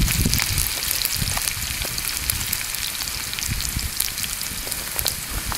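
Raw diced potatoes sizzling and crackling steadily in hot oil in a frying pan over a campfire, just after being tipped in.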